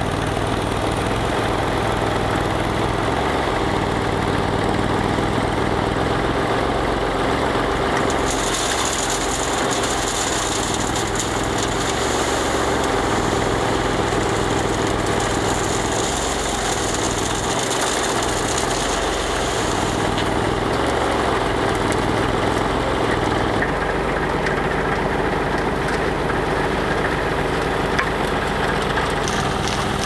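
A small skid-steer loader's engine and a backhoe's engine running together, the loader's engine note changing every few seconds as it works. A steady hiss sits on top from about eight to twenty seconds in, while a bucket load is tipped into the hydraulically driven cement mixer drum.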